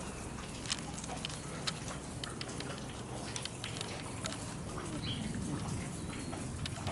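Rain falling steadily, with scattered drops ticking sharply on hard surfaces.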